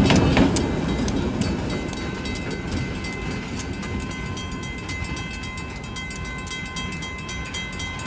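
Train rolling past, its wheels clicking over rail joints, the rumble fading as it moves away, with a faint thin squeal from the wheels.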